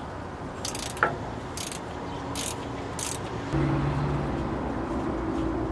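Ratchet wrench clicking in four short bursts about a second apart, working on a bus starter's mounting bolts. A low steady hum comes in about halfway through.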